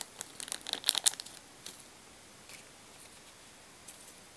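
Thin plastic sachet crinkling in the fingers as the crumb coating powder is shaken out of it, a cluster of crisp crackles in the first second or so. After that, only a few faint light rustles as the coating is worked onto the ball in the plastic tray.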